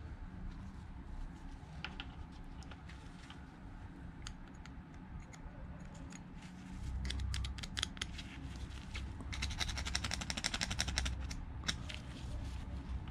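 Small metallic clicks and clinks of hand tools at work, with a quick run of rapid clicks about ten seconds in, over a low rumble that comes up about halfway through.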